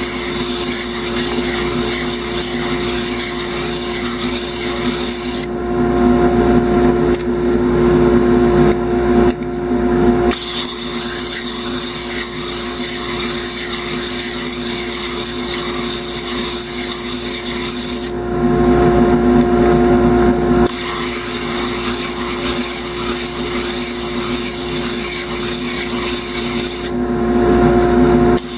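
Wood lathe running a sanding disc with a steady motor hum, while a segmented wooden glue-up is held against the disc and sanded flat. Three times for a few seconds the high hiss drops away and the sound turns lower and louder.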